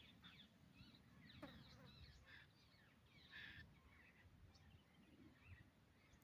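Faint, distant outdoor birdsong: scattered short chirps and trills from wild birds, with one brief harsher call about three seconds in, over a low wind rumble.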